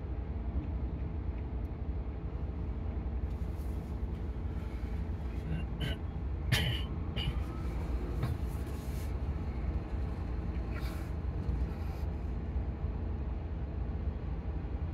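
Steady low engine rumble of heavy vehicles and machinery working the ferry's cargo, with a few short clanks and hisses between about four and twelve seconds in, the loudest about six and a half seconds in.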